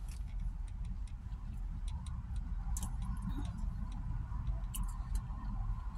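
Close-up mouth sounds of a person eating: scattered sharp clicks of chewing and lip smacking over a steady low rumble.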